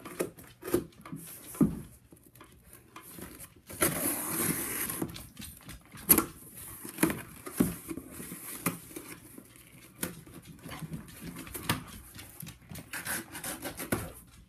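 Cardboard shipping box being opened by hand: packing tape cut and torn away, with rubbing, scraping and knocks as the box is shifted and turned on a wooden tray table. A longer tearing, hissing stretch about four seconds in, and sharp knocks scattered through.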